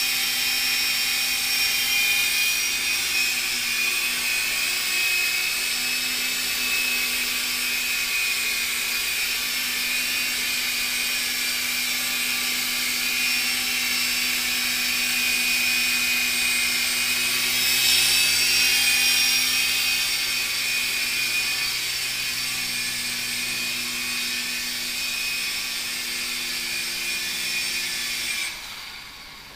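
Blade mCX micro coaxial RC helicopter hovering: the steady high whine of its small electric motors and rotors, with a brief louder swell about two-thirds of the way through. It cuts off suddenly near the end as the motors stop.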